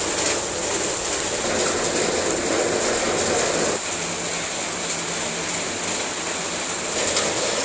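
Heavy rain pouring steadily on trees, leaves and ground: a dense, even hiss. It thins slightly a little under four seconds in.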